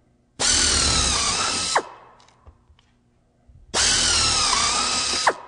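Single-speed electric drill runs twice at full speed, each time for about a second and a half, as a number 30 bit enlarges pilot holes in aluminum sheet to rivet size. Each run starts abruptly, and the whine dips slightly in pitch near its end before falling away as the motor stops.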